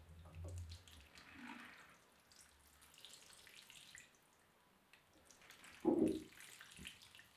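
Water from a watering can trickling and pattering faintly onto a potted plant's gritty soil mix, uneven throughout. A short, dull thump about six seconds in is the loudest sound.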